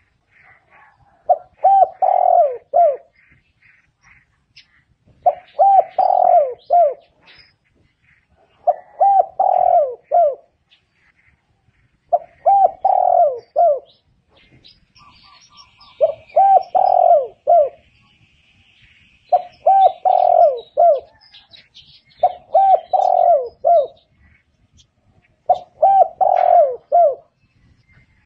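Spotted dove calling: its short phrase of several low, quick coos repeated about every three to four seconds, eight times.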